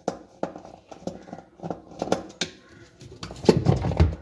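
Irregular clicks and knocks of washing machine parts being handled by hand, with a louder run of heavier clattering knocks near the end.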